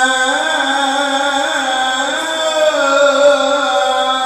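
A male qari's voice reciting Quran in the melodic tilawah style, amplified through a handheld microphone. The start is one long held note, which about half a second in breaks into winding, ornamented runs that rise and fall.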